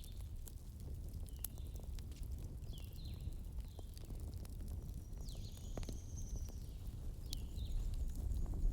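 Campfire burning with a low rumble and a few sharp crackling pops from the wood. Short high chirps that fall slightly in pitch come and go over it.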